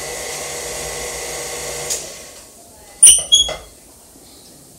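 Electric stand mixer running steadily, then winding down and stopping about two seconds in. About a second later, two sharp ringing clinks of a metal utensil against the mixer's steel bowl.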